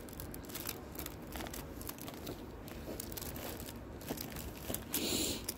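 Greeting cards in plastic sleeves crinkling and rustling as a hand flips through them, with a louder rustle about five seconds in.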